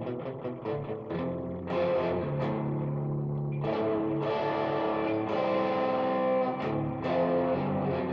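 Stratocaster-style electric guitar in open D tuning playing country blues: quick picked notes at first, then ringing notes and chords.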